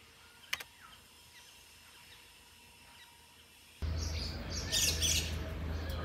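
Near silence with a single faint click, then outdoor sound cuts in abruptly about four seconds in: birds chirping over a low steady rumble.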